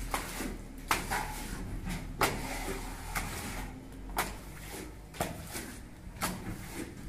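Plastering float and straightedge knocking and scraping against a ceiling beam while wet gypsum plaster is pressed on and smoothed, with a sharp knock about once a second.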